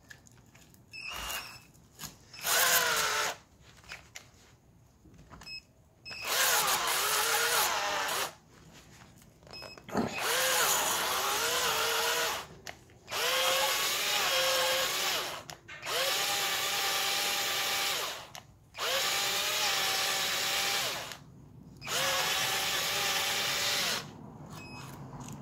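Cordless drill spinning a homemade sandpaper-wrapped electrode to clean the engine block's bolt holes. It runs in a couple of short blips and then about six bursts of two to three seconds each, with its pitch dipping as each burst starts.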